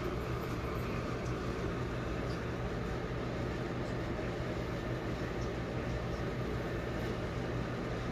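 Steady low hum with a constant hiss: room background noise, with no distinct event standing out.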